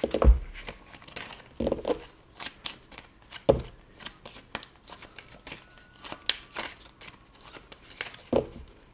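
A deck of large tarot cards being shuffled by hand: quick, irregular clicks and slaps of cards sliding against each other, with about three louder thuds.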